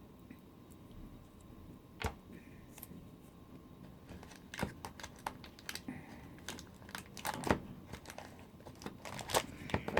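Small plastic clicks and taps with light crinkling from hands handling toy pieces and their packaging. There is one sharp click about two seconds in, then a busier run of clicks from about halfway.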